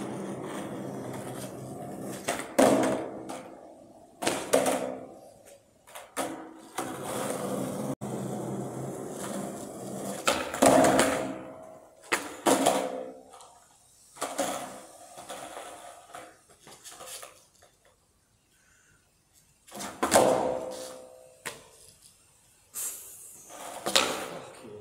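Skateboard wheels rolling on concrete, broken by several sharp knocks and clatters as the board is popped, flipped and lands or falls during heelflip attempts, with quiet gaps between tries. The hard sounds echo under the concrete deck of a car park.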